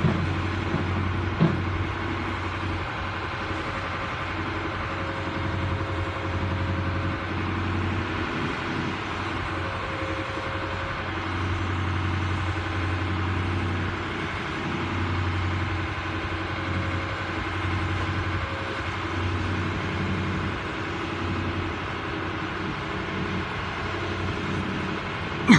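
Crane boat's engine running steadily with a constant low hum, while a faint higher tone comes and goes. Two brief knocks sound in the first two seconds.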